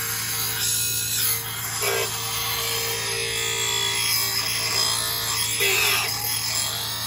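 Electric bench grinder running while a steel garden-tool blade is pressed to its wheel for sharpening, a steady hum under a rasping grind that swells twice as the blade bites harder.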